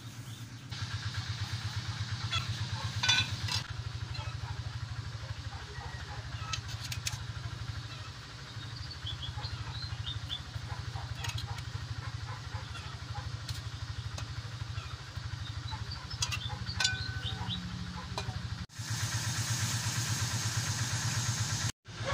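A small engine running steadily, a low hum with a fast even pulse, with scattered light clicks and knocks over it.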